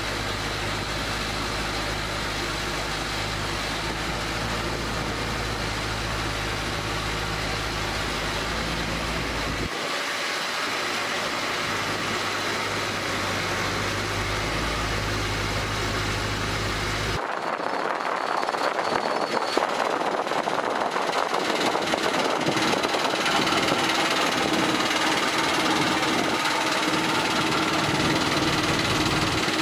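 Small river ferry's engine running with a steady low hum. About seventeen seconds in the sound switches abruptly to a louder, even rushing of the boat under way on the river.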